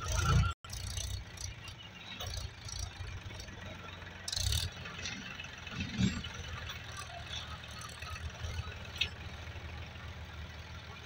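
Tractor diesel engines idling with a steady low rumble, with scattered small knocks and a brief scraping hiss about four and a half seconds in.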